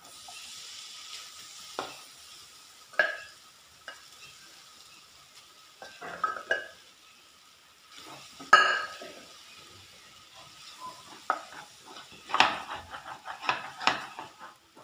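Clam meat sizzling as it hits a hot oiled pan of fried shallots and green chilli, stirred with a wooden spatula. Its strokes scrape the pan, the loudest about eight seconds in, with a run of quick strokes near the end.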